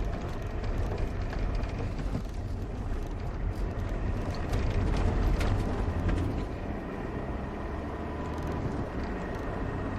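1988 Citroën BX 19RD's non-turbo diesel engine pulling the car along the road, with tyre and road noise; it grows louder about four seconds in and eases off again after about six seconds.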